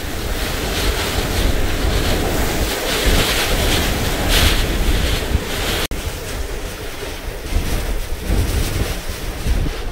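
Category 2 Hurricane Sally's eyewall wind blowing hard, with driving rain: a loud rushing hiss that swells in gusts, and a low rumble from the wind buffeting the microphone. There is a brief break about six seconds in.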